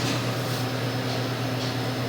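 Steady low electrical hum from a vending machine's cooling unit running, with no keypresses.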